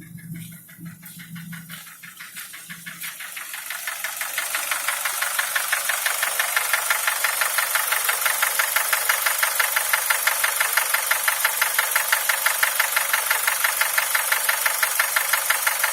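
Nissan QG18DE 1.8-litre inline-four engine running with a rapid, evenly spaced knock. The knock grows louder over the first few seconds, then holds steady.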